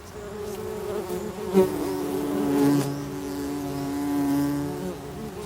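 Several bumblebees buzzing in their nest, overlapping hums at different pitches. A deeper hum joins about two and a half seconds in, and there is a short sharp click about a second and a half in.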